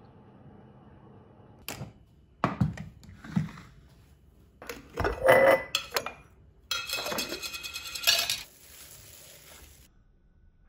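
Glass jars and metal screw lids knocking and clinking on a marble countertop. A few separate knocks are followed by a busier run of clatter and scraping lasting a couple of seconds, which then dies away.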